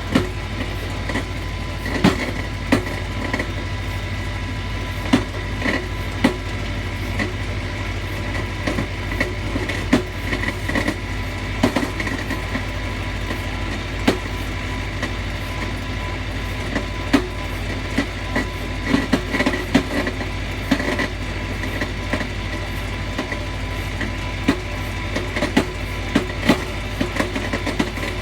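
Tractor running steadily and driving a PTO-powered Farmi 501 logging winch as it pulls in a whole tree, with irregular sharp clicks and knocks throughout.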